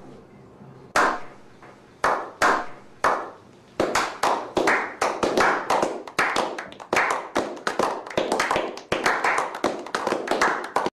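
Edited-in slow-clap sound effect of a clapping meme: single echoing hand claps about a second apart, then from about four seconds in faster claps, several overlapping.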